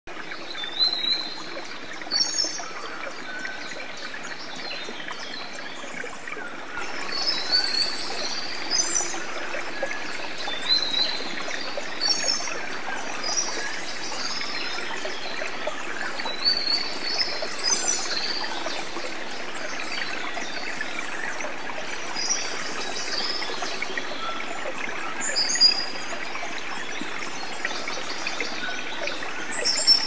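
Running water, a steady stream-like rush, with small birds chirping over it in short high phrases every second or two. The water grows a little louder about six or seven seconds in.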